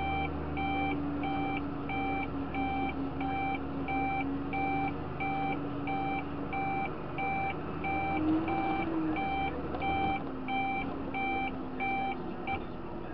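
Electronic beeper in a tractor cab repeating about one and a half times a second, stopping near the end, over the steady drone of the tractor's engine.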